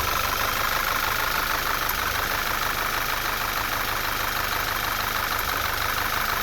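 2010 Audi A4's 2.0-litre turbocharged four-cylinder engine idling steadily, with a miss starting to come in. The misfire is unresolved after a fuel pump change; the owner can't say whether it comes from fuel-diluted oil that needs changing or from a further fault.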